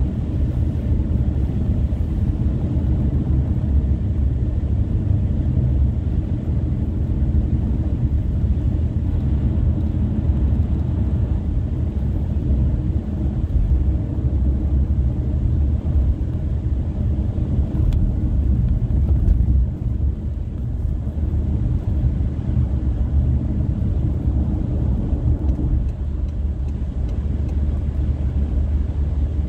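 Steady low road and engine rumble of a car driving along a highway, heard from inside the cabin.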